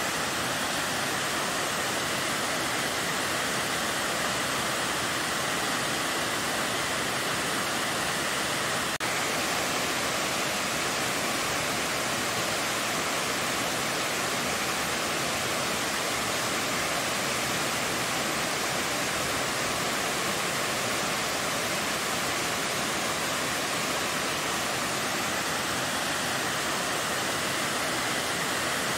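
Tall multi-tiered waterfall pouring down a rock face: a steady, even rush of falling water.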